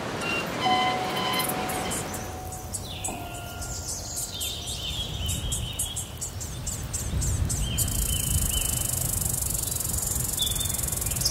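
Countryside ambience of insects chirping in quick trains, with short repeated bird calls and a low rumble; a steady high insect buzz joins about eight seconds in. It opens on a noisy swell with a few held tones that fades within about two seconds.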